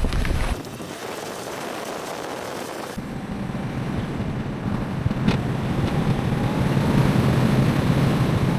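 Steady road and wind noise of a moving car, a low hum under a rushing haze, changing abruptly about half a second in and again about three seconds in.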